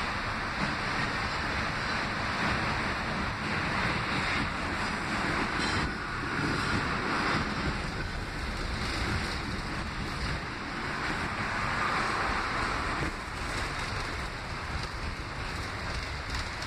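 An R46 subway car running through a tunnel, heard from inside the car: a steady rushing noise of wheels on rail and air, swelling and easing every few seconds.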